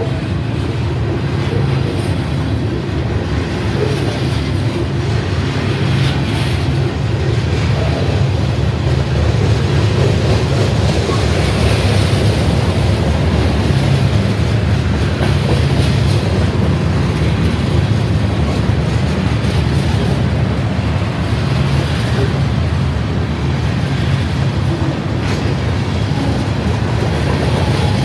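Freight train of covered hopper cars rolling past: a steady rumble of steel wheels on rail, with occasional faint clicks over the rail joints.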